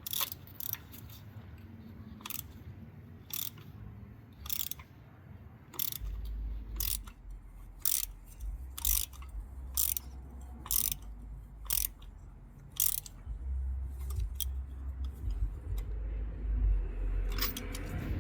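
Ratchet with a spark plug socket and extension clicking in irregular strokes, roughly one click a second, while an old spark plug is loosened. A low rumble comes in about six seconds in.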